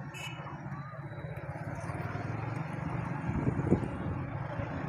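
Steady street and traffic noise around parked cars, with car engines running. A brief louder knock comes a little over three and a half seconds in.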